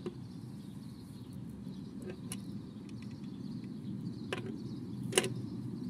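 A few light clicks and taps of a small plastic toy tricycle and a mini ball-jointed doll being handled on a wooden tabletop, the sharpest about five seconds in, over a steady low background rumble.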